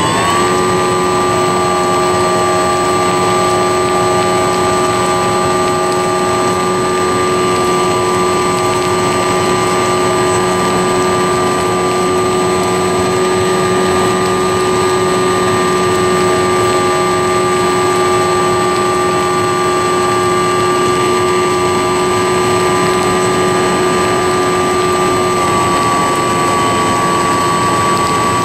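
RC flying-wing model airplane's motor and propeller running in flight at a steady throttle, a constant pitched drone heard close up from the plane's onboard camera. The pitch settles just after the start, holds steady, and drops slightly near the end.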